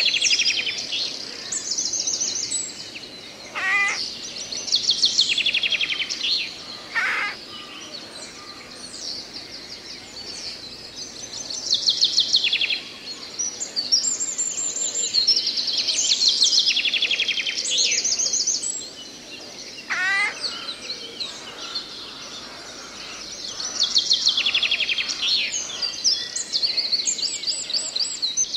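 Songbirds singing in woodland: repeated high trilled phrases about one to two seconds long, coming every few seconds, with a few shorter, lower calls in between, over a steady soft background hiss.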